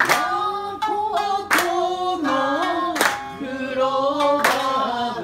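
Group singing a slow melody together with rhythmic hand clapping: a loud clap about every second and a half, with lighter claps between.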